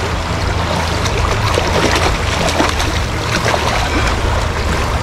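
Fast, shallow stream water rushing steadily over rocks in a riffle, with a strong low rush underneath.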